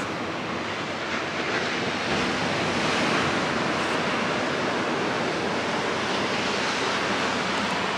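Steady wash of ocean surf, swelling a little about two to three seconds in.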